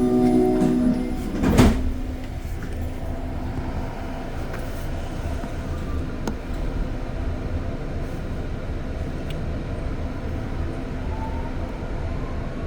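Tones of a chime end, then an REM light-metro car's sliding doors shut with a loud thump about a second and a half in, followed by the train's steady low rumble.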